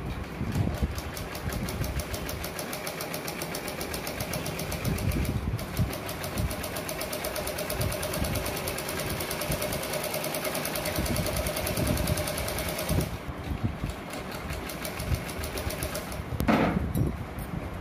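Usha sewing machine stitching in a steady, rapid rhythm. It pauses about thirteen seconds in and runs again briefly near the end.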